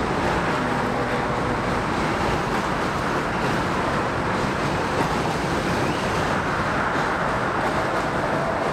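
Steady rumble of a Budd R32 subway train running along the bridge tracks below, mixed with the hum of car traffic on the bridge roadways.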